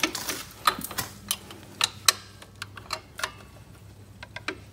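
Irregular sharp metallic clicks, two or three a second, from a 12 mm wrench being worked on a motor mount bolt behind the drive chain.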